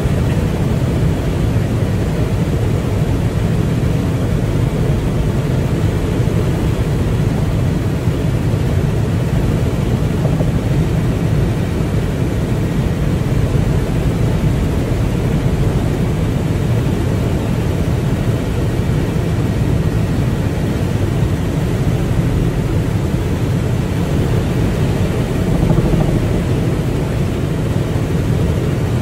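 Steady engine and air noise heard inside an aircraft cabin in flight: a constant low rumble with no change.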